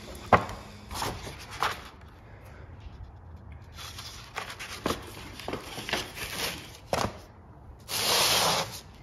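A large hardcover book being handled on a carpeted floor: soft taps and rustles as its pages are turned and the book is closed, then a short, loud rubbing hiss near the end as the hand moves over the cover.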